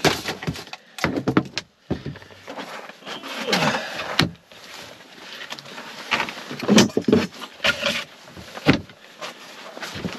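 Rustling, scraping and a few knocks of someone moving about and handling gear inside an insulated fabric ice shelter.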